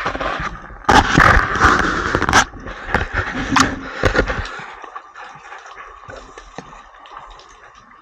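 Underwater noise: a loud stretch of rushing, crackling sound with many sharp clicks for the first four or five seconds, then fainter crackling and scattered clicks.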